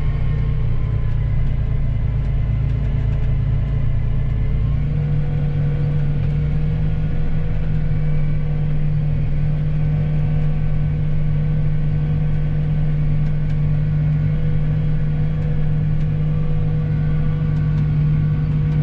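Diesel engine of large harvest machinery running steadily under load, a constant low drone with a steady whine above it; the drone firms up slightly about five seconds in.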